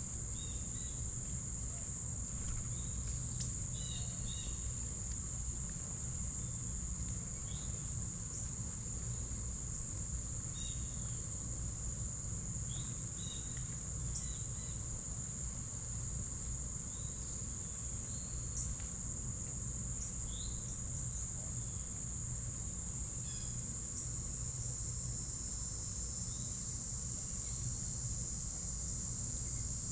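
Steady high-pitched insect chorus, cricket-like, with short scattered bird chirps and a low rumble underneath.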